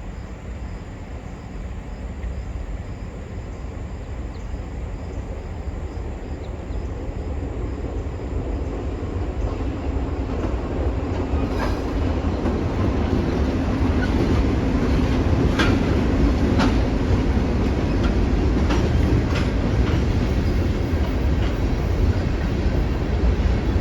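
ALCO diesel locomotive on a freight train, its low engine rumble growing steadily louder as it approaches, with wheels clicking over rail joints from about halfway through.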